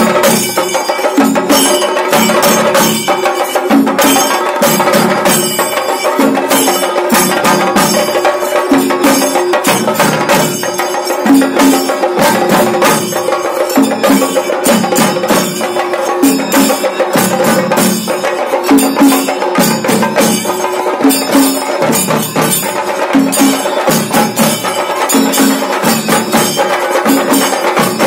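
Chende drum ensemble playing a fast, dense rhythm with sticks, with deeper accented beats about once a second and a steady tone held underneath.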